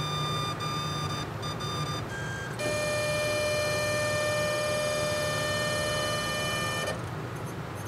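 Tecan liquid-handling robot arm of an IntegenX Apollo 100 DNA sequencer moving its pipetting head, its stepper motors giving a steady electronic whine. The whine shifts pitch and grows louder about two and a half seconds in, then cuts off near the end.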